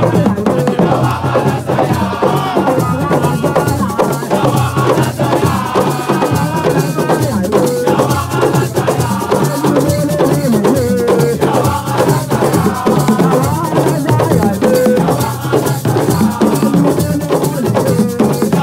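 Live West African percussion rhythm: drums and shaken rattles keep a dense, steady pulse, with a wavering melody over them.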